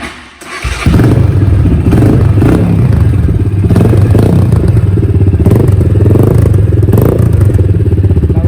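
Vento Rocketman 250cc motorcycle engine catching about a second in, then running loudly and steadily with a fast, even exhaust pulse. The exhaust is open and louder because the silencer baffle has been pulled out of the stock muffler.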